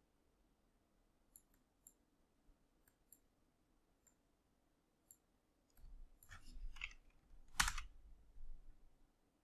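Faint, scattered clicks of a computer mouse and keyboard, then a louder few seconds of desk handling noise with a single sharp click about two thirds of the way through.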